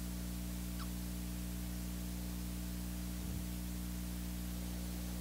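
Steady electrical hum with a layer of hiss, the background noise of a live microphone and sound system with no one speaking.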